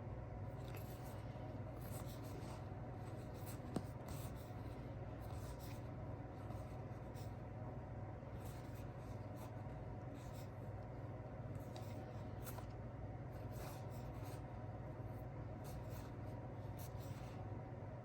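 Board game components being handled: light rubbing and rustling scrapes at irregular moments, with one sharp click about four seconds in, over a steady low hum.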